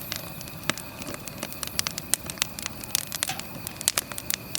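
Crackling from the direct-fire grill: many irregular sharp pops and snaps over a low steady hiss.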